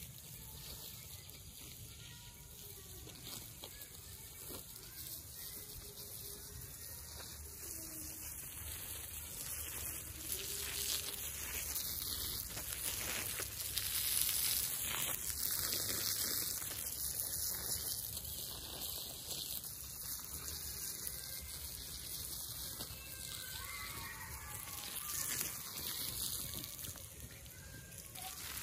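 Water spraying from a garden hose onto soil and seedlings: a steady hiss that grows louder for several seconds in the middle.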